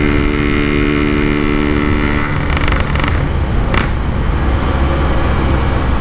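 Yamaha RX-King's two-stroke single-cylinder engine running under way through a side-mounted aftermarket exhaust. Its tone holds steady for about two seconds, then turns rougher and less even.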